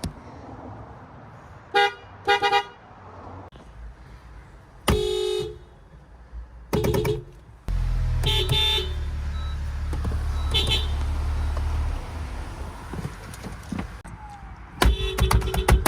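Honda car horn sounded in short toots: a quick double toot, a longer honk, then several more single and double toots. A low steady rumble sits under the middle stretch, and a loud, fast, evenly pulsing sound starts near the end.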